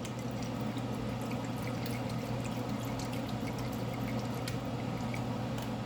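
Shrimp-and-chicken broth bubbling in a large pot: a steady liquid hiss with small scattered pops, over a steady low hum.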